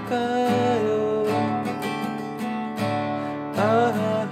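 Acoustic guitar strumming under a singer holding the long last note of a sung line.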